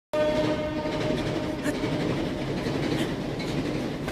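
A train rolling past: a steady rumble with a held tone over it that fades out about a second and a half in.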